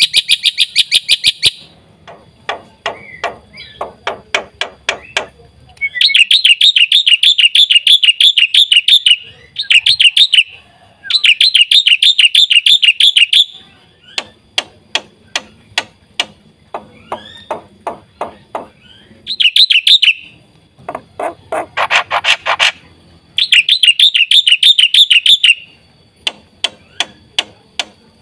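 Black-winged myna (jalak putih) singing: loud, fast, buzzy trills lasting a few seconds each, alternating with rows of sharp clicking and chattering notes.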